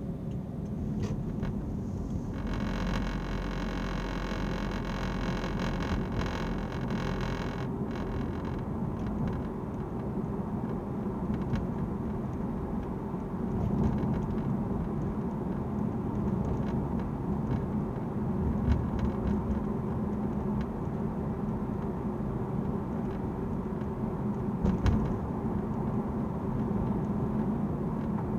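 Steady road and drive noise inside a moving car's cabin, with scattered short clicks and rattles: an abnormal noise from the rear parcel shelf. A steady layered tone sounds from about two to eight seconds in.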